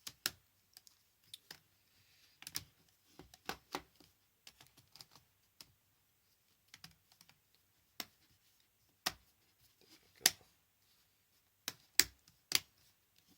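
Irregular plastic clicks and taps of an HP Mini 110 netbook keyboard being pressed down around its edges so its tabs clip into place. The loudest clicks come about ten and twelve seconds in.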